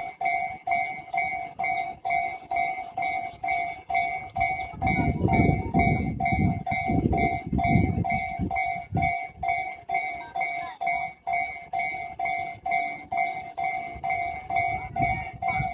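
Japanese level-crossing warning bell ringing steadily, about two and a half dings a second, while a Saikyō Line train passes with a loud rumble from about four to nine seconds in.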